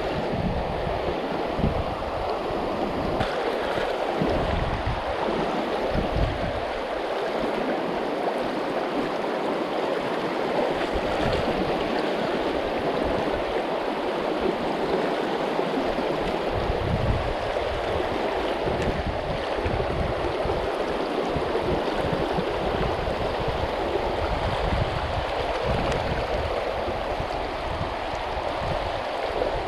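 Steady rush of a river's current running over stones. Wind buffets the microphone in gusts, dropping away for a stretch in the middle.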